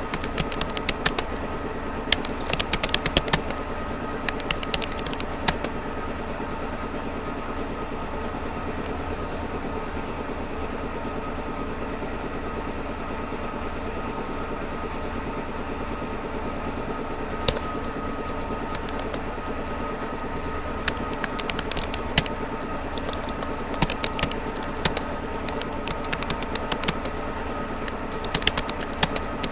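Keystrokes on a Rapoo computer keyboard, irregular clicks in quick runs over a steady background hum; the clicking thins out to a few isolated keys in the middle stretch and picks up again toward the end.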